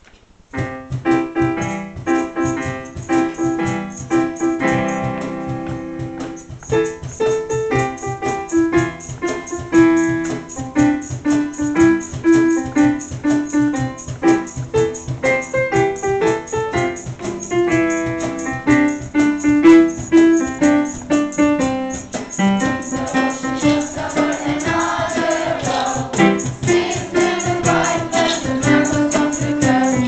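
Keyboard played with a piano sound, starting about half a second in with a chordal introduction. About three-quarters of the way through, a choir of young voices comes in singing over it.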